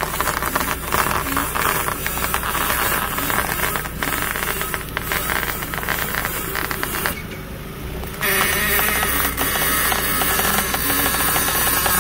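Ford Escape front lower control arm ball joint creaking and crackling as the front wheel is steered back and forth: the squeak of a worn joint whose rubber boot is torn and dried out. The noise breaks off for about a second past the middle, then comes back louder.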